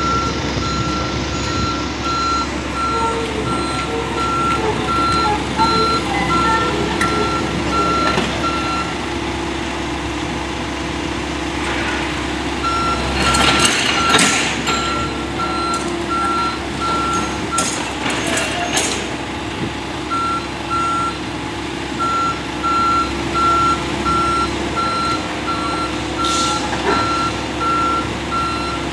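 Excavator's travel alarm beeping at an even rate over its running engine as the machine tracks. The beeping stops for a few seconds twice, and short bursts of louder noise come near the middle.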